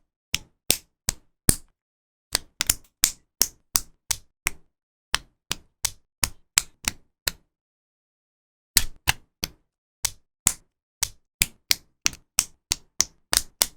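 LEGO Technic plastic parts being clicked and snapped together by hand: a run of sharp clicks, about three a second, with a pause of about a second and a half past the middle.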